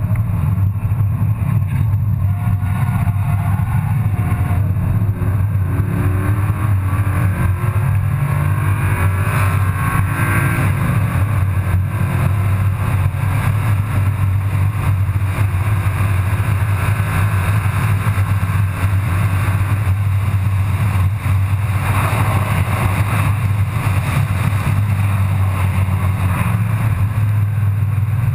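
Car engine and tyre noise heard from inside the cabin while lapping a racetrack: a steady low drone, with the engine note rising under acceleration from about four to ten seconds in.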